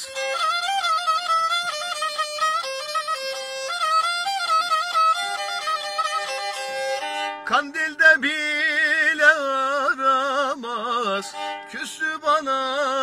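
Black Sea kemençe played with a bow, solo: a fast run of quick stepping notes, then from about halfway a slower phrase with heavy vibrato.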